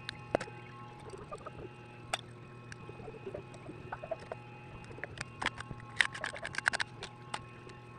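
Scattered small clicks and taps of hands working on a phone and its repair tools, with a quick run of clicks about five to seven seconds in, over a steady low hum.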